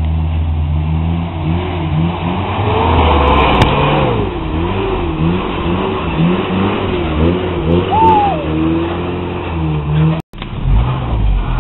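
Toyota rock crawler's engine revving up and down over and over in short throttle blips, with a brief break in the sound about ten seconds in.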